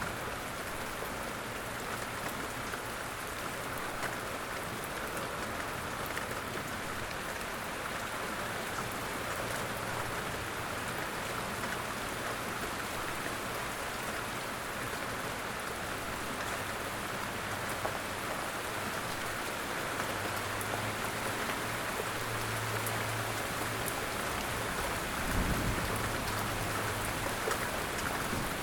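Light rain falling steadily in woodland, an even hiss with scattered individual drops ticking on leaves and surfaces. A brief low rumble comes near the end.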